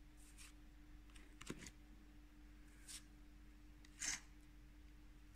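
Pokémon trading cards handled in the hands, faint: a few brief soft swishes and flicks as cards are slid off the front of the stack, the loudest about four seconds in. A faint steady hum runs underneath.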